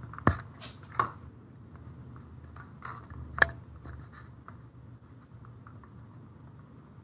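Typing on a computer keyboard: sharp clicks in the first second and a louder one about three and a half seconds in, with faint light key taps between, over a low steady hum.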